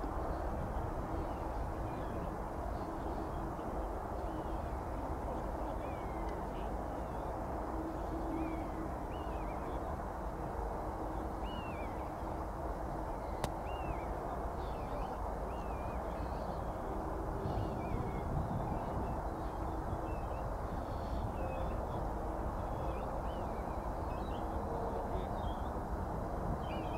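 Steady distant rumble of a Boeing 787's jet engines at taxi power, with small birds chirping repeatedly over it. One sharp click about halfway through.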